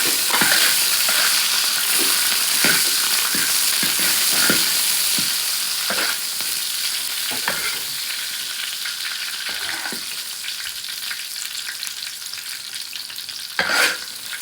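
Food frying in hot oil with a steady sizzle, stirred with irregular scraping strokes, one louder stroke near the end.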